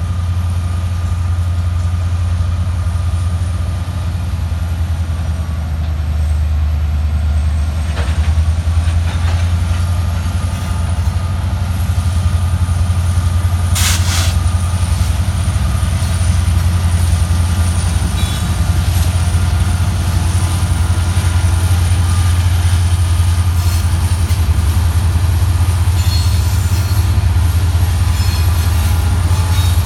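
Diesel locomotives of a departing freight train, an EMD SD60 leading Union Pacific SD70-series units, running under power as they pull slowly past: a loud, steady, deep engine drone. A brief sharp noise comes about fourteen seconds in, and faint high squeals come near the end.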